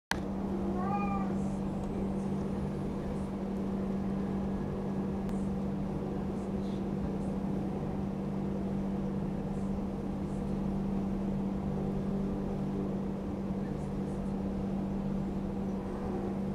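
A cat gives one short meow about a second in, over a steady low hum throughout.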